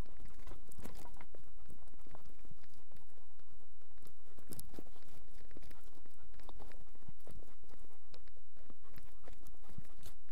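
A search-and-rescue dog moving about while searching, picked up by the microphone on its own wearable harness. Irregular clicks, scrapes and footfalls sit over a steady low rumble, with no barking.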